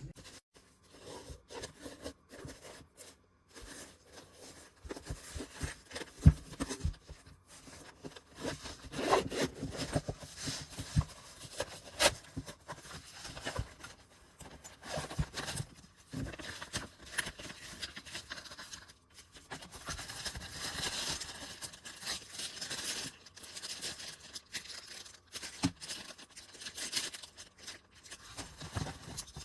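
Irregular handling noise: scraping, rubbing and rustling with scattered clicks and a few sharp knocks, as of hard objects being handled and set down.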